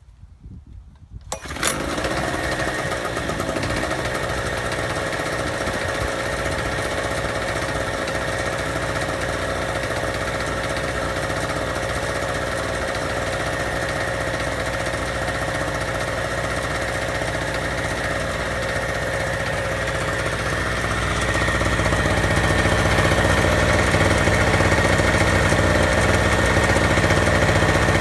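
Harbor Freight Storm Cat 800-watt generator's 63cc two-stroke engine being pull-started, catching about a second and a half in and then running steadily. It gets somewhat louder about 21 seconds in.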